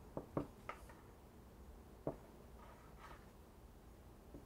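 Metal fork crimping a pastry edge on a small ceramic bowl, its tines giving a few quiet clicks against the bowl's rim: three close together at the start and another about two seconds in.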